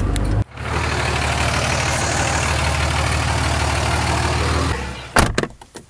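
Car engine running steadily with a low hum and a wide hiss above it, cut off briefly about half a second in. A single sharp knock sounds near the end as the engine noise fades.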